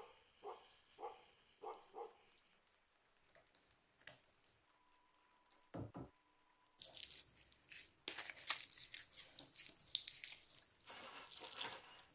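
Utility knife slitting the plastic sheath of a power cable in a few short strokes, then the plastic insulation being torn and peeled off the copper wires: a dense crackling rustle through the second half.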